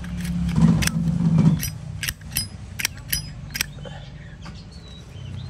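A vintage chrome-plated brass Zippo lighter handled, with about seven sharp, ringing metallic clicks and clinks of its lid and hinge over a couple of seconds. A low hum runs underneath, louder in the first second and a half.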